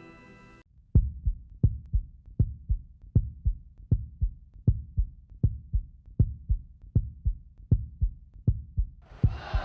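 Heartbeat-like sound effect: low double thumps, about 80 beats a minute, starting about a second in. Music with a choir comes in near the end.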